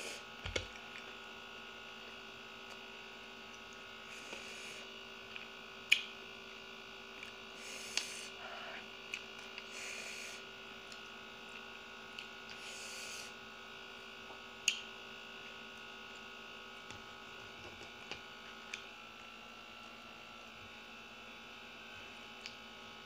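Steady faint hum in a small room with quiet eating noises over it: a few sharp clicks and several short bursts of chewing and mouth sounds.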